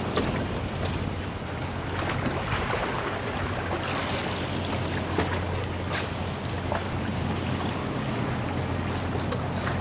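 Wind rushing on the microphone over a steady low engine drone, with a few light clicks.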